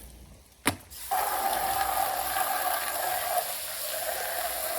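A sharp click, then water running steadily from a tap, used while checking an inflated bicycle inner tube for its leak.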